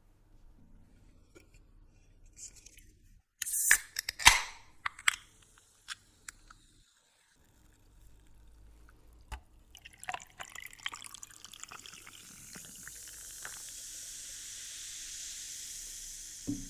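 Several loud sharp crackles and clicks, then a steady hiss of liquid being poured that swells over the last few seconds.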